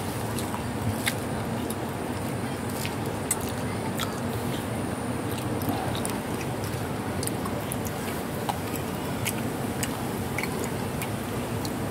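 Cats chewing pieces of a cassava snack, heard as small irregular crunches and clicks over a steady background hiss.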